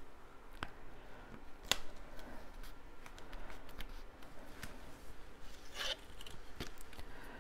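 Cardstock being handled on a tabletop: folded and pressed down, with light taps and paper rustling. A louder rustle comes near six seconds in as the folded piece is lifted.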